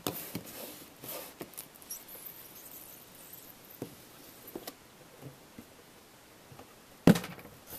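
A cardboard box being worked open with a butter knife: faint scratching and small clicks of the blade and cardboard, with a sharp knock about seven seconds in.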